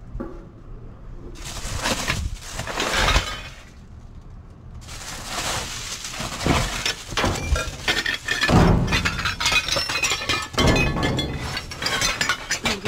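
Rummaging through a dumpster full of trash: plastic bags, bubble wrap and packaging rustling and crinkling, with hard items clinking and knocking. A short lull comes a few seconds in, then the rustling picks up again and keeps going.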